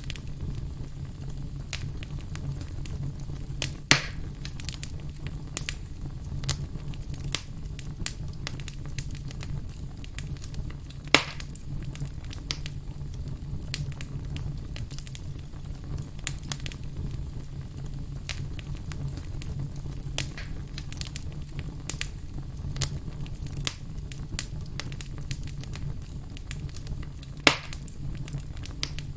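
Burning firewood crackling, with scattered sharp pops and three louder snaps about 4, 11 and 27 seconds in, over a steady low rumble of the fire.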